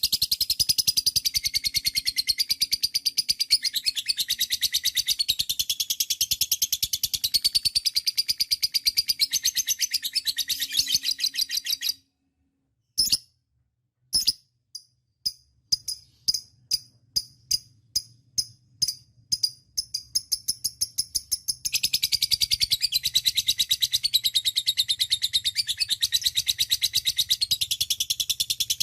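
Lovebird's long 'ngekek' song: a fast, unbroken rattling trill of high chattering notes. It breaks off about twelve seconds in, gives way to single chirps about two a second, then the long rapid trill starts again a few seconds before the end.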